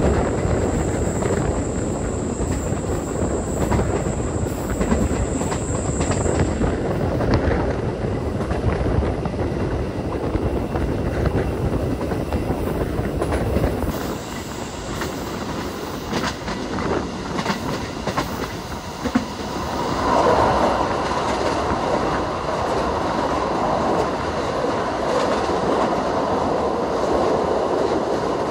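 Passenger train running at speed, heard through an open coach door: steady wheel-on-rail noise with occasional clacks from the rail joints. The noise grows louder about twenty seconds in.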